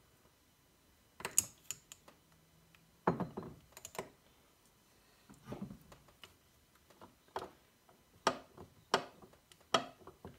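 Irregular light metallic clicks and knocks, a dozen or so, as the crankshaft and connecting rod of a KTM 65 two-stroke engine are moved by hand. The owner says it sounds like a lost bearing, and later puts it down to a failed crank bearing.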